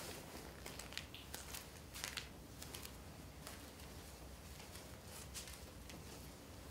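Faint rustling of a jumper being pulled off and small scattered knocks and scuffs of bare-footed movement on a stage floor, over a low room hum.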